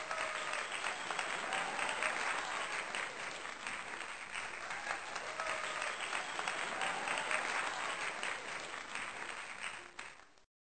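Crowd applause, a dense steady clapping, cutting off suddenly near the end.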